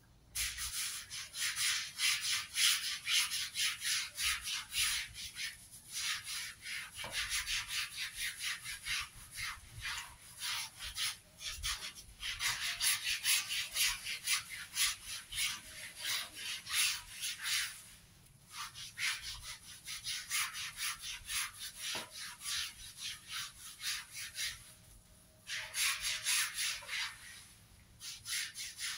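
Hand scrub brush scrubbing a wet carpet with quick back-and-forth strokes, several a second, in runs broken by brief pauses.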